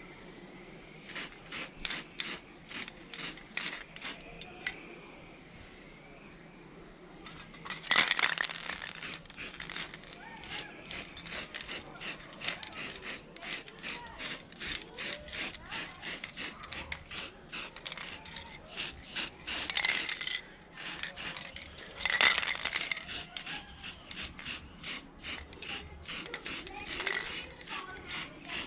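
Hand work on a small welded metal part: irregular quick clicking, rubbing and scraping of tools on metal, with louder clattering stretches about eight seconds in and again a little past twenty seconds.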